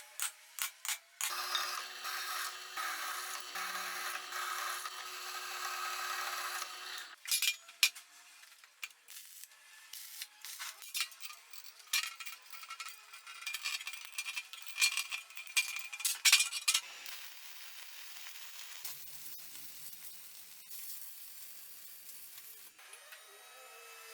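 Workshop work on metal: scraping and rubbing noises broken by sharp clicks and knocks, with a steady run of a small tool or machine from about a second to seven seconds in.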